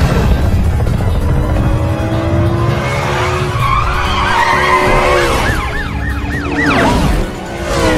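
Chase sound effects: car engines revving and tyres skidding, then a police siren yelping in fast rising-and-falling wails from about halfway through, with music underneath.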